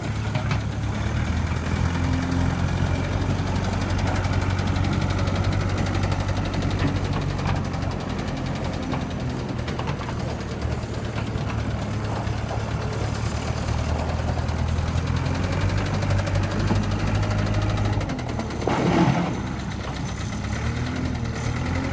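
New Holland 555E backhoe loader's diesel engine idling steadily, with an engine noise that the seller says could be an exhaust leak, a fuel knock or a bad injector. Near the end the low engine note drops briefly and a short louder sweep passes.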